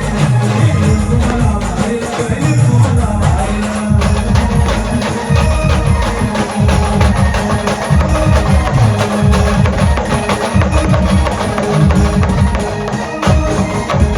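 Brass band playing an instrumental passage of a Marathi song: dense, fast drumming under held brass notes.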